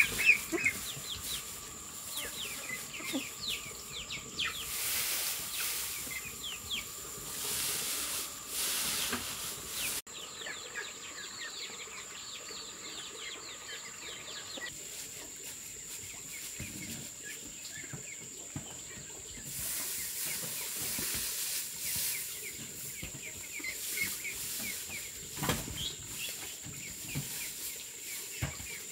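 Birds chirping over a steady high insect drone, with a hiss that swells up twice for a few seconds. Soft knocks and scraping from hands working loose soil.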